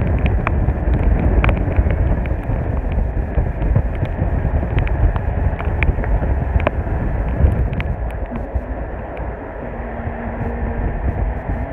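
Cabin noise of a moving road vehicle: a steady low rumble of engine and tyres, with many small rattles and clicks scattered through it.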